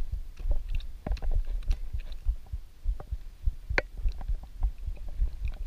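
Handling noise at the microphone: irregular low thumps with scattered sharp clicks, as a slippery snagged pike is wrestled in the hands.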